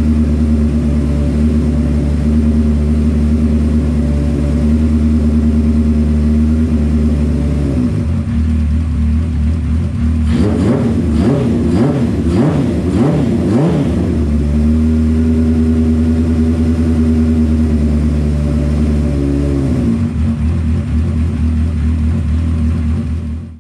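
Honda CB550's air-cooled inline-four engine idling steadily, revved several times around the middle with the pitch rising and falling, then settling back to idle. It is the engine's first run after a top-end gasket replacement, warming the new copper exhaust gaskets.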